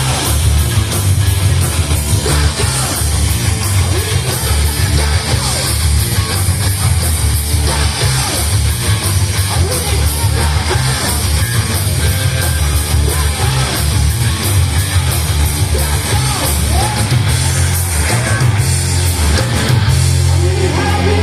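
Heavy rock band playing: distorted electric guitars, bass and a driving drum beat, with yelled vocals. A single note slides upward near the end.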